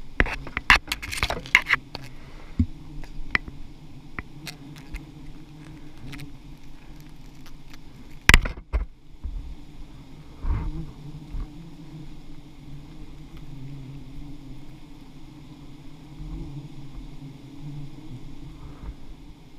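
A swarm of giant honeybees (Apis dorsata) humming steadily around their open comb. Clicks and knocks from handling come in the first couple of seconds, with a sharp knock about eight seconds in and a duller one about two seconds later.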